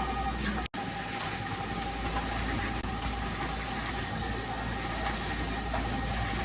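Automatic pouch-packaging machinery running steadily: a continuous mechanical hum with a faint steady whine. The sound drops out for an instant just under a second in.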